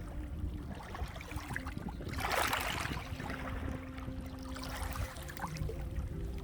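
Sea waves washing onto the shore, with a steady low rumble and one wave breaking louder about two seconds in.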